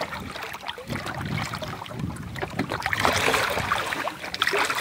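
Water splashing and sloshing against a boat's hull as a sandbar shark thrashes alongside, growing louder about three seconds in.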